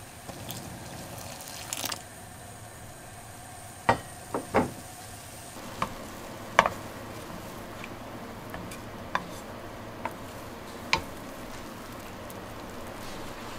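Wooden chopsticks clicking and knocking against the pot as thin wheat noodles are stirred and lifted in boiling water, a scatter of sharp irregular clicks over a steady hiss of the water on the boil.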